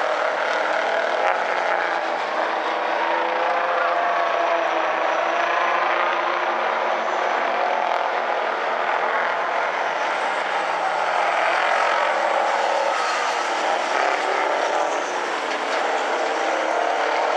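Several semi-truck tractors' engines racing together, a steady overlapping drone whose pitches waver up and down as they rev through the laps.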